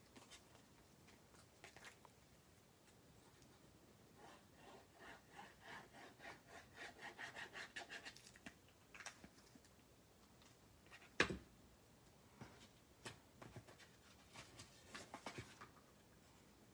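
Applicator tip of a liquid glue bottle rubbing across cardstock in a quick run of scratchy strokes, about five a second for four seconds, as glue is squiggled on. Then a single sharp tap and a few light paper-handling clicks.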